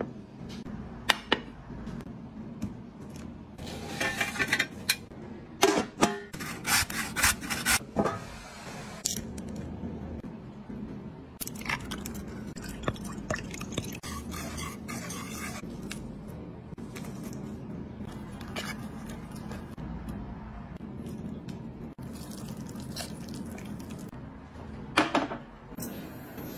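Kitchen food-prep sounds: sharp knocks and clinks of dishes and utensils being handled, and a wire whisk stirring batter in a metal bowl in a run of quick scrapes about halfway through, over a steady low hum.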